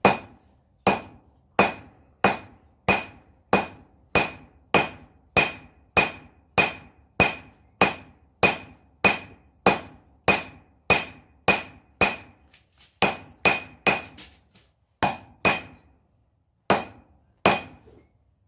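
Hand hammer striking hot coil-spring steel on an anvil, a steady rhythm of about three blows every two seconds, each blow ringing briefly. The blows pause briefly a few times in the last few seconds. The smith is straightening rings cut from a garage-door spring.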